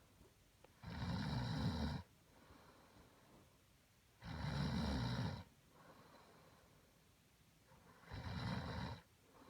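A sleeping person snoring: three snores about three and a half seconds apart, each lasting about a second.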